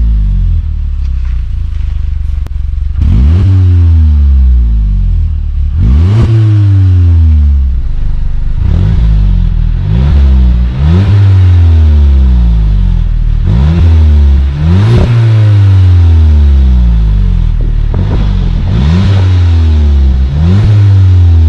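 Volkswagen Scirocco 2.0 TSI turbocharged four-cylinder engine, heard through its exhaust, revved again and again from idle in quick blips, about ten of them. Each rev rises sharply and falls back more slowly.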